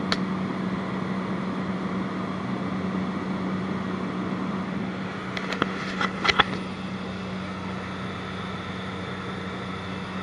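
Steady drone of a light aircraft's engine and propeller heard from inside the cabin, with a constant low hum. A few sharp knocks about six seconds in.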